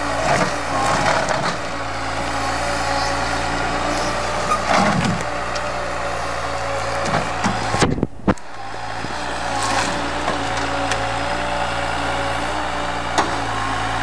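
Timber truck's diesel engine running steadily to power its loader crane, with a few short knocks as logs are handled. The sound drops out for a moment about eight seconds in.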